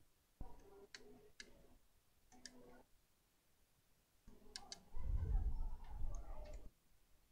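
Small sharp clicks of tools against an iPhone 6 being taken apart on the bench, with a stretch of low rumbling handling noise about five seconds in.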